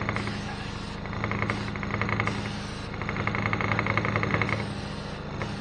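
A small motor running steadily with a low hum, and over it a rapid rattling buzz that comes and goes in irregular stretches of about a second or more, the longest about three seconds in.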